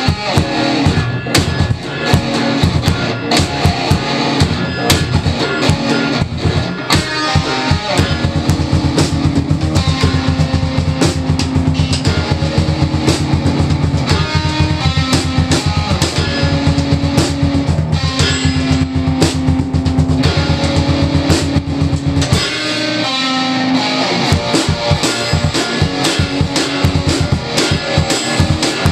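Rock music with guitar and drums and a steady beat; the bass briefly drops out about three-quarters of the way through.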